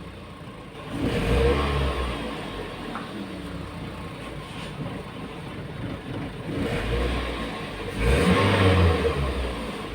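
Toyota RAV4 engine running and revved twice, once about a second in and again near the end. The engine now runs after a no-crank, no-start fault that was traced to the starter.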